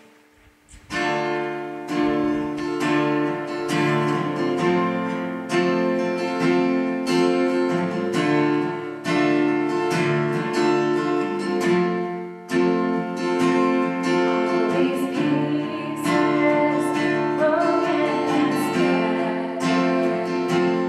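Acoustic guitar strummed in steady chords, starting about a second in. A woman's singing voice joins over the guitar in the last few seconds.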